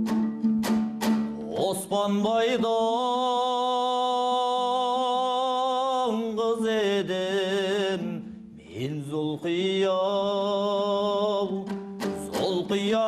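Kazakh folk music: a few plucked string notes over a low drone, then long held melodic notes with vibrato and sliding pitch, twice, before plucked notes return near the end.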